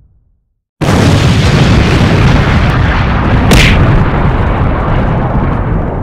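Cinematic boom sound effect for a title card: after a brief silence, a sudden loud boom comes in about a second in and runs on as a dense rumbling blast. A short bright hiss rises out of it in the middle, and the rumble eases a little near the end.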